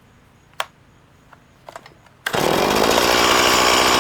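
Stihl MS170 chainsaw's small two-stroke engine firing up about two seconds in, after a few faint clicks of handling, then running steadily and loudly; the owner says it runs great.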